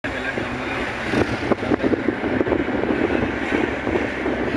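A vehicle driving along a road, heard from inside: steady engine and road noise with wind buffeting the microphone in irregular crackles.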